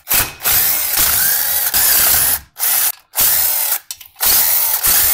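DeWalt cordless impact driver hammering as it backs out the bolts of a small engine's crankcase cover plate. It runs in several bursts of a second or two, with short pauses between.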